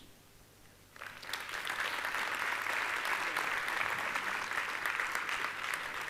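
Large audience applauding: a brief hush, then steady clapping that starts about a second in and holds.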